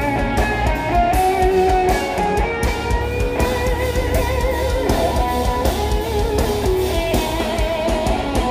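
Instrumental progressive metal played live by a band: a sustained lead electric guitar melody with vibrato over drums, cymbals and bass.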